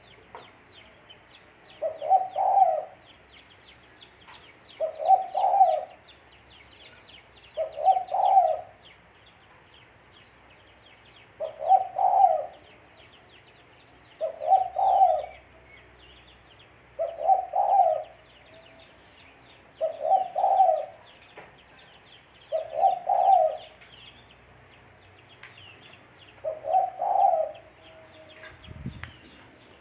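Spotted dove (tekukur) cooing: the same short phrase of coos repeated about every three seconds, ten times. Faint high chirping of other birds runs behind it.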